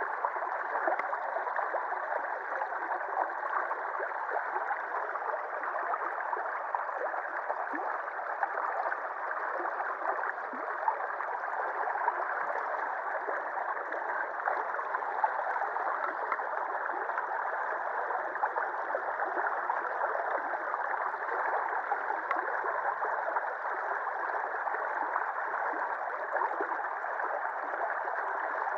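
Shallow river water rushing and swirling around a concrete ledge, a steady turbulent flow.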